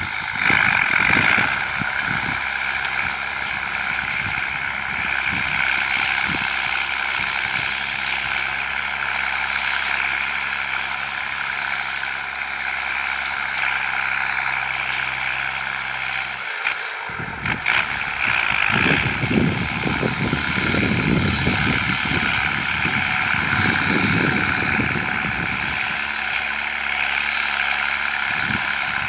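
New Holland 7840 tractor's diesel engine running steadily under load as it drags an 18-disc implement through dry ground. Low gusty noise joins it after a short break about two thirds of the way through.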